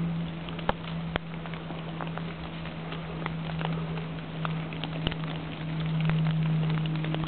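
Footsteps pushing through woodland undergrowth: dry leaves, bracken and twigs crackling and snapping, with two sharper snaps about a second in, over a steady low hum.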